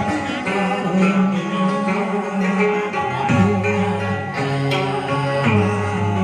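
Instrumental tân cổ music led by plucked guitar over held bass notes, played as an interlude between sung passages.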